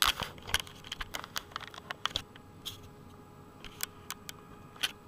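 Handling noise of a handheld camera being fitted onto a mount: a quick run of clicks, taps and knocks for about two seconds, then a few scattered clicks.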